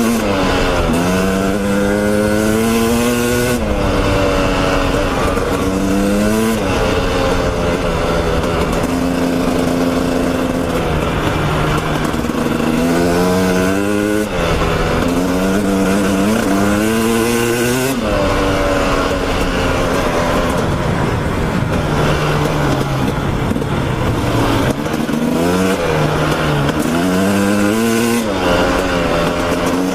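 Dirt bike engine revving up through the gears while riding a trail: its pitch climbs and drops back several times, with steadier running between.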